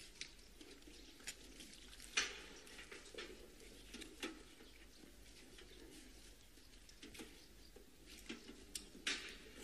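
Faint footsteps on stone paving, scattered single clicks about a second apart, with pigeons cooing softly underneath.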